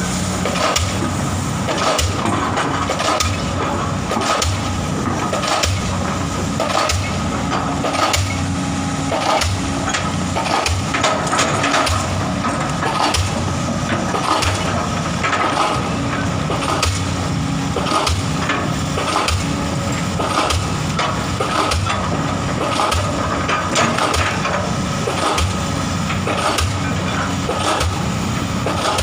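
Kobelco excavator's diesel engine running steadily under work, with frequent irregular knocks and clanks from the machine.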